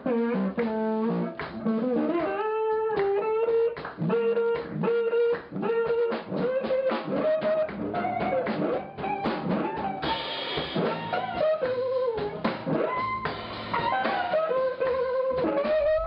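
Band music: drum kit and guitar under a lead melody line that slides between notes.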